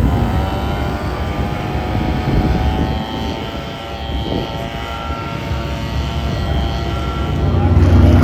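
NASCAR Cup Series stock cars' V8 engines at racing speed on the track, several engines heard at once. The sound eases off in the middle and swells again near the end as cars come past.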